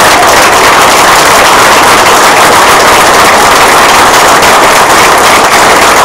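Audience applauding, loud and steady.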